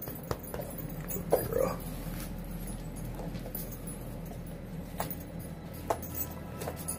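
A Lycan Shepherd puppy gives a brief whine about a second in, then makes a few sharp clicks while gnawing a raw deer leg bone, over a steady low hum.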